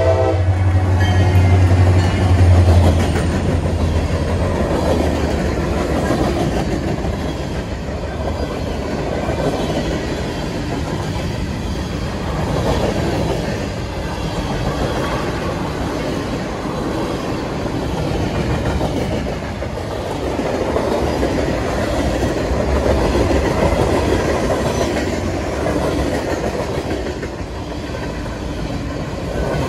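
A diesel-hauled freight train passing close at high speed. A horn note cuts off at the very start, the locomotive's low engine drone fades over the first few seconds, and then the freight cars rush by with a rumble of wheels on rail that swells and fades.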